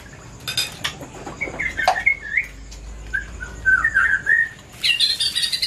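Small songbird chirping and whistling in short rising and falling notes, with a quicker, denser run of high chirps near the end.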